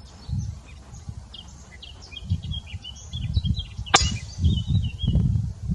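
A single shot from a PCP air rifle, one sharp crack about four seconds in. Small birds chirp throughout, and wind gusts rumble on the microphone.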